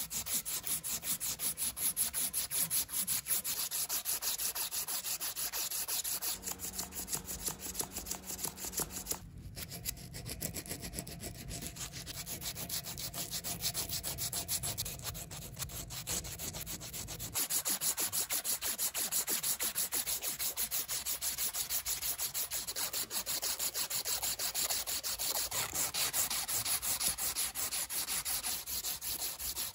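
Rapid back-and-forth hand sanding strokes, an abrasive rubbing in a quick, even rhythm, softer for a stretch in the middle.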